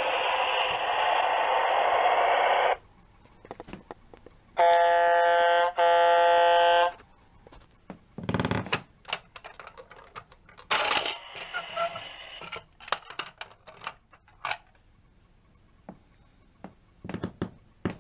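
Battery-powered Early Learning Centre toy car carrier playing its electronic sound effects: a loud noisy sound that cuts off about three seconds in, then a two-part electronic horn beep. After that come scattered plastic clicks and knocks as its upper deck and ramp are worked by hand.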